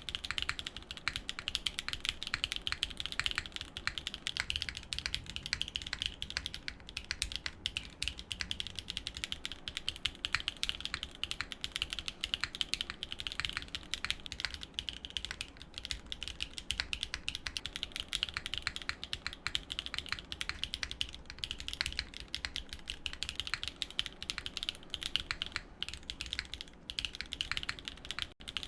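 Continuous fast typing on a Neo65 custom mechanical keyboard, a dense run of clacky keystrokes with only a brief pause near the end.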